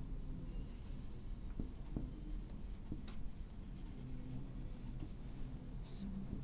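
Whiteboard marker writing on a whiteboard: faint, scratchy strokes, then a short swish about six seconds in as a line is drawn under the words.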